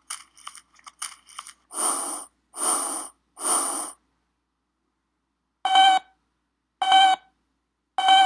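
Cartoon sound effects: crackling, then three short rustling crunches of rubbish from a knocked-over trash can. After a pause, a short beep repeats about once a second.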